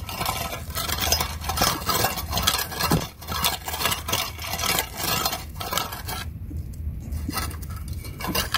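Metal bow rake scraping and dragging loose gravel over dirt, the stones clinking and rattling in repeated strokes. The strokes come thick and fast at first and thin out about six seconds in.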